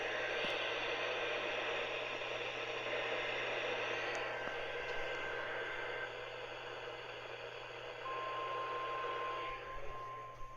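Hiss and static of a weak NOAA Weather Radio signal received on a software-defined radio, with a faint high tone buried in the noise. About eight seconds in, a clear steady tone comes in and holds.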